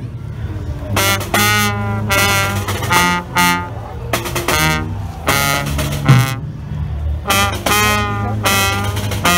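Small costumed street band playing: trumpet and other brass in phrases of held notes over a low bass line, with a bass drum hit about six seconds in.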